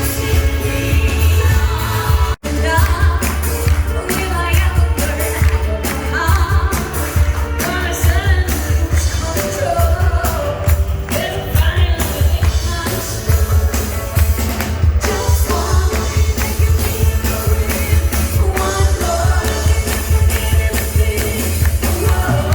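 Pop song with a sung vocal over a heavy, steady bass line, with a split-second drop-out about two seconds in.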